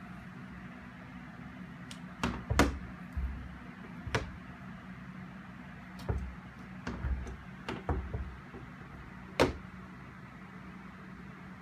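A cat toy and its over-the-door hanger knocking and rattling against a door as cats bat at it. There are about nine irregular sharp knocks, the loudest about two and a half seconds in and again later on.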